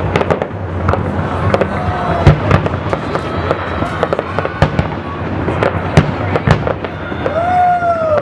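Aerial fireworks display: an irregular run of sharp bangs from bursting shells, over a steady crackling rumble.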